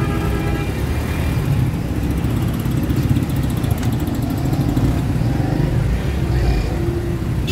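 Steady low rumble of a moving road vehicle, engine and road noise, with a few faint higher tones near the start and again near the end.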